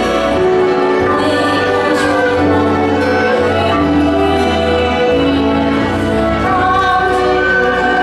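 Chinese traditional instrument ensemble playing: erhu, dizi flute, pipa, guzheng and guitar, with long held melody notes over a steady bass line.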